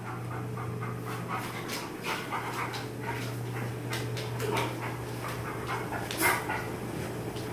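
Airedale terrier panting in quick, rhythmic breaths while playing, over a steady low hum, with one sharp loud sound about six seconds in.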